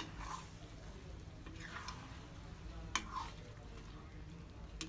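Metal ladle stirring chicken pieces with yogurt in a kadhai: soft wet squishing strokes, with sharp clicks of the ladle against the pan at the start, about three seconds in, and near the end.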